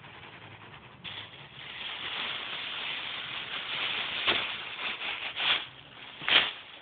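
Thin plastic shopping bag rustling and crinkling as a kitten pushes its head into it and paws at it, starting about a second in, with a few louder crackles near the end.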